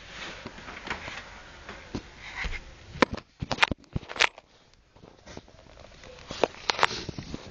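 Cats scrabbling in a cardboard box: soft rustling and scratching on cardboard, with a cluster of sharp knocks about three seconds in and two more near the end.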